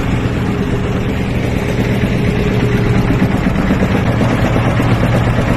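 An engine running steadily at idle, an even low hum, with water churning and sloshing beneath it.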